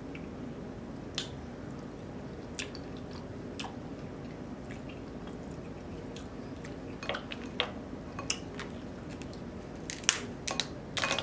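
Close-up chewing with sparse soft wet mouth clicks. Near the end, a quick run of sharp cracks as a cooked snow crab leg's shell is snapped apart by hand.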